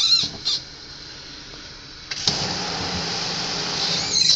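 Faucet handle squeaks briefly as it is turned. About two seconds in, water from a pull-out spray head starts hissing steadily into a utility sink basin.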